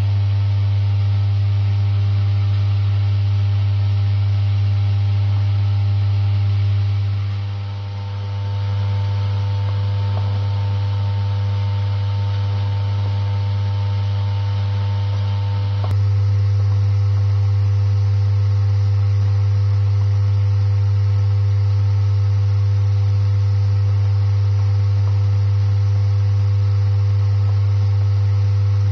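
Electromagnetic vibratory bowl feeders running, loaded with plastic medical-device parts: a loud, steady low hum with a faint hiss above it. The higher tones change suddenly about halfway through, as a different feeder is heard.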